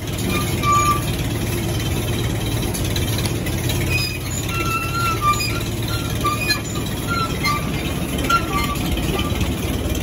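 Red grinder-mixer running in a barn to make cattle feed: a loud, steady mechanical rumble and clatter, with short high chirps scattered over it.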